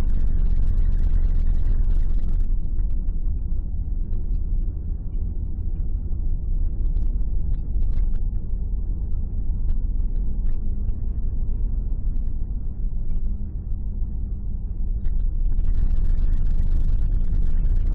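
Car driving along a winding road: a steady low rumble of engine and tyre noise, with more road hiss in the first two seconds and again near the end.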